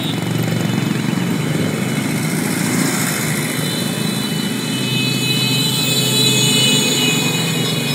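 Many small motorcycles and underbone scooters riding past in a convoy, their engines running together in a steady, loud mix.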